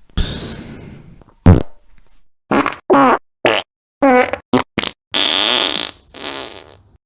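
A string of fart sound effects: about eight separate blasts, mostly short and wavering in pitch, with a longer, steadier one about five seconds in.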